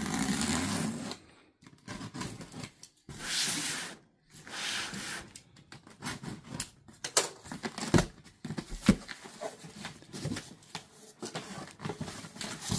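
Box cutter slicing through packing tape on a large cardboard box, heard as several long tearing rasps, followed by the cardboard flaps being bent open with scattered knocks and clicks.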